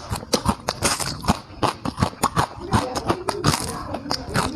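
Close-up chewing and lip-smacking of a person eating: quick wet clicks, several a second, with a brief low hum partway through.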